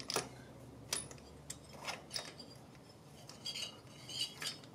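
Scattered light metallic clicks and clinks of small engine parts, a pushrod and its tube hardware, being handled by hand, a few with a brief high ring.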